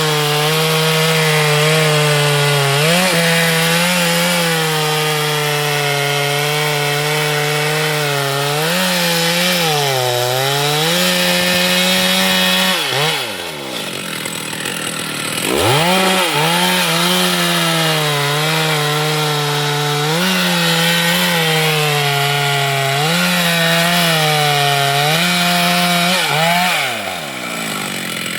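Chainsaw running at full throttle while cutting wood, its pitch dipping now and then as it loads in the cut. About 13 seconds in the throttle is let off and the saw drops to idle, then revs back up a couple of seconds later to cut again, and it drops back off near the end.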